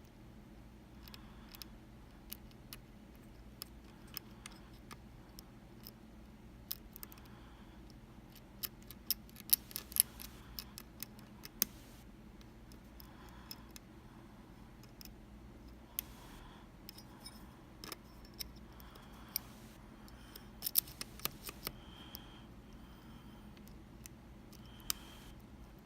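Lock pick and tension wrench working the pins of a Kaba Quattro S dimple lock: scattered sharp metallic clicks and taps, bunching into quick runs about ten seconds in and again around twenty seconds.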